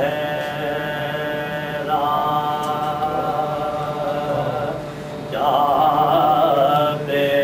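A man chanting a salaam, an unaccompanied devotional lament, in long held notes with a wavering vibrato from about five seconds in.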